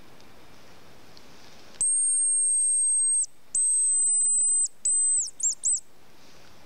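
Hazel grouse decoy whistle imitating the hazel grouse's song to lure the bird: two long, very high, thin whistled notes, then a shorter falling note and a quick broken trill of dipping notes.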